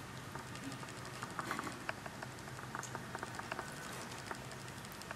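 Ragdoll cat licking another cat's fur at close range: a run of small, irregular wet clicking licks, several a second, starting about a second in.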